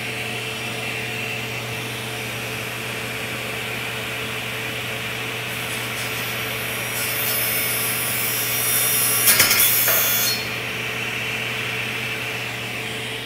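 Table saw running with its blade spinning, a steady hum. About five seconds in, a fake hand pushed against the blade starts being cut, adding a harsh high-pitched grinding that grows louder with a few sharp clicks and stops about ten seconds in, leaving the saw running on.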